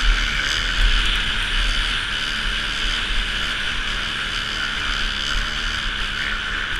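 Dirt bike engine running steadily at speed while towing a skier on a rope over snow, mixed with a continuous rushing noise of wind and skis on snow.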